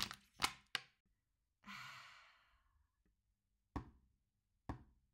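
Performed sound effects: three quick sharp clicks, then a long breathy sigh that fades away, then three single knocks about a second apart.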